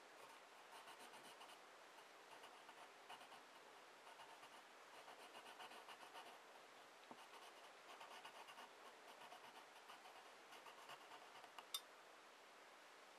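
Faint scratching of a wooden graphite pencil on paper, in clusters of quick short strokes with brief pauses between; a single sharp tick near the end.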